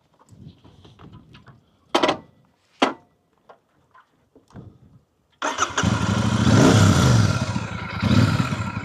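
Royal Enfield Super Meteor 650's parallel-twin engine firing up about five seconds in and running, with a brief blip of revs, after two short knocks. It restarts after cutting out on rough ground; the rider suspects a sensor or the side-stand switch was jolted.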